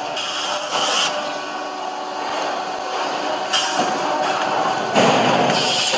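Steady machinery noise of an abattoir processing hall, broken by short bursts of hissing: one about a second long at the start, a brief one after three and a half seconds, and another near the end.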